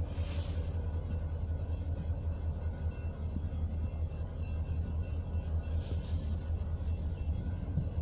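Union Pacific diesel locomotives rumbling steadily at low speed as they approach, a deep constant drone with a faint brief hiss twice.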